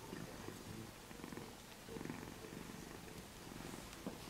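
Domestic cat purring softly, a low fine rattle that swells and eases in slow waves with its breathing.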